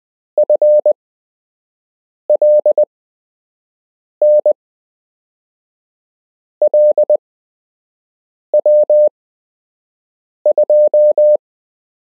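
Practice Morse code (CW) sent as a single steady mid-pitched beep, keyed on and off in dots and dashes. It comes in six short groups about two seconds apart, spelling out random amateur radio call signs for copying practice.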